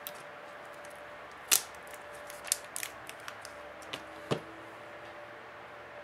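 A few sharp clicks and taps of plastic and metal being handled as the Nexus 7 tablet's battery is pried out and set down on the table, the loudest about a second and a half in, over a faint steady hum.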